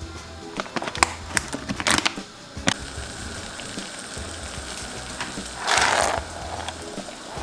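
Plastic pasta bag crinkling in the hands, a few sharp crackles over the first three seconds. Then water boiling in a steel pot, a steady hiss, with a loud brief rush near the end as trofie pasta slides off a plastic container into the water.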